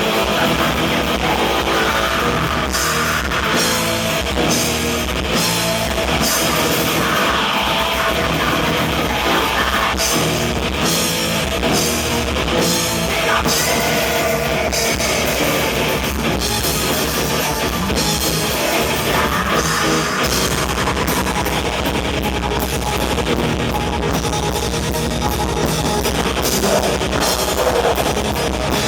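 Black metal band playing live: distorted guitar and bass, keyboards and fast, dense drumming, loud and without a break.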